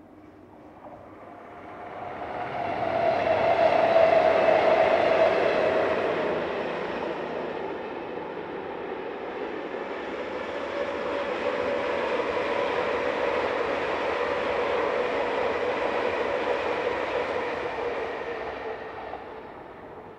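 Two InterCity 125 (HST) trains with class 43 diesel power cars passing each other at speed. Engine and wheel noise swells to its loudest about four seconds in, holds through a second long passing, and fades near the end.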